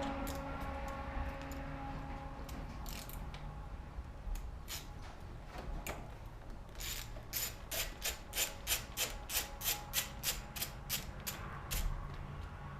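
A ratchet with an 8 mm socket clicking as it backs out the bolts holding a dirt bike's front number plate: a few scattered clicks, then a quick even run of about three or four clicks a second for several seconds.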